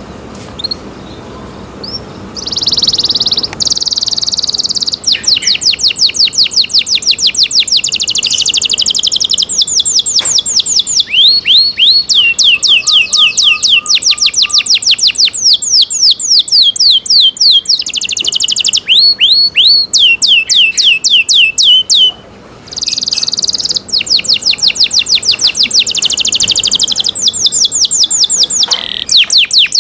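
Domestic canary singing: long, loud song of fast trills of repeated high down-sweeping notes, starting a couple of seconds in, with a short break about three quarters of the way through before it goes on.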